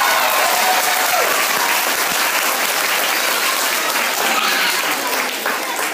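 Steady applause from a hall full of children and adults, many hands clapping together.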